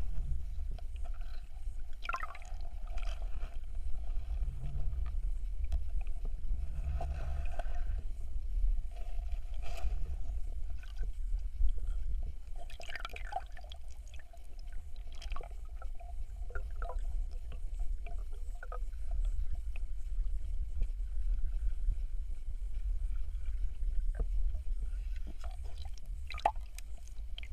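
Underwater sound through a submerged camera in a river: a steady low, muffled rumble of moving water, with scattered faint clicks and crackles.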